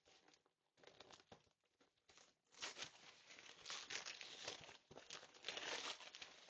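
Paper or plastic packaging crinkling and tearing as a present is unwrapped. It is faint and scattered at first, then turns into denser, louder crinkling from about two and a half seconds in.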